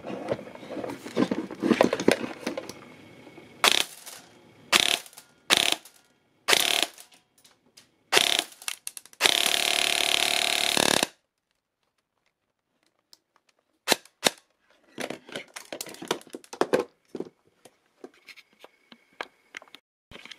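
Airsoft electric gun (AEG) firing through a chronograph: five short bursts, then one sustained full-auto burst of about two seconds. Rustling and handling noise comes before the shots, and scattered clicks follow after a pause.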